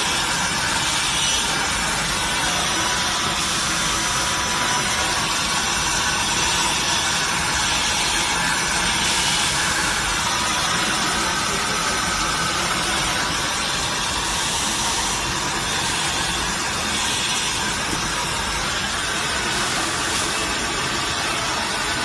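Automatic in-line PCB depaneling router running: a steady, even hiss of machine noise with a faint high whine, no breaks or distinct strokes.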